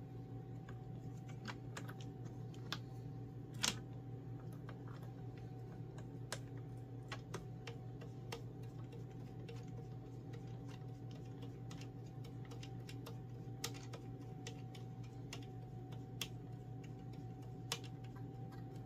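Scattered small clicks and taps of plastic and metal telescope parts being handled and fitted to a tripod mount, the sharpest about three and a half seconds in, over a steady low hum.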